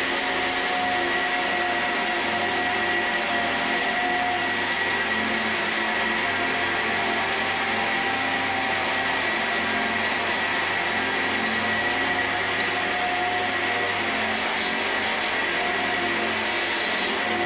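Wood lathe running with a steady high whine while a hand-held turning tool cuts along a spinning blank of dry chestnut.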